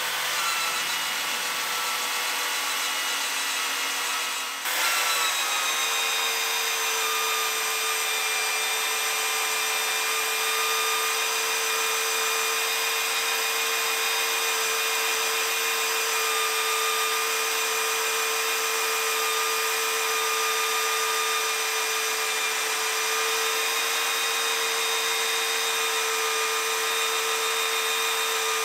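Evolution S28MAG magnetic drill running with a 1 1/8 in annular HSS cutter. About five seconds in it gets louder and settles into a steady tone as the cutter bores through half-inch plate steel under load.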